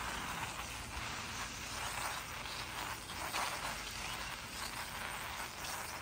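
Bicycle rolling over packed, frozen snow: a steady crunching tyre noise with small irregular surges, over a low rumble.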